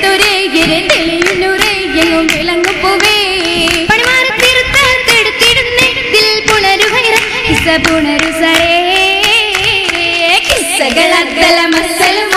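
Oppana song: girls' voices singing a Mappila song together over steady rhythmic hand clapping.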